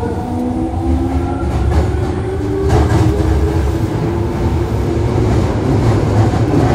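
Toei Asakusa Line 5300 series subway car running, heard from inside the car directly above its VVVF inverter. The inverter and motor whine sounds as several steady tones that shift in steps over the low rumble of the running gear. The wheels give a couple of clacks over rail joints about two to three seconds in.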